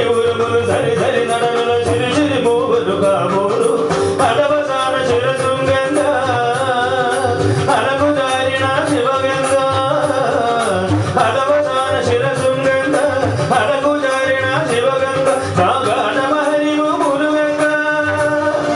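A man singing a Telugu film song in Carnatic style, amplified through a microphone, holding long wavering notes over instrumental accompaniment with a steady drum beat.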